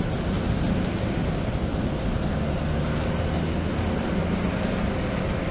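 A large wildfire burning through a building: a steady low rushing roar with faint scattered crackles.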